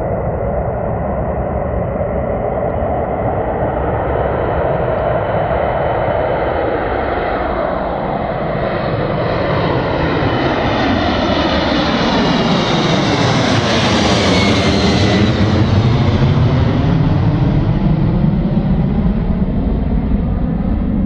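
Boeing 767 twin-engine jetliner at takeoff power, climbing out and passing directly overhead: a steady, loud jet engine noise that grows louder, peaking about two-thirds of the way through. As it passes over, the tone sweeps and swirls, and a faint high whine falls in pitch.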